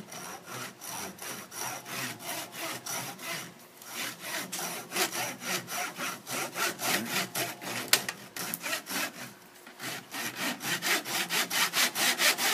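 Shark 2410 pull saw cutting through clamped wooden piano hammer shanks to trim them, in quick back-and-forth strokes about three to four a second. There are short pauses about four and ten seconds in, a sharp click near eight seconds, and the strokes get louder and faster near the end.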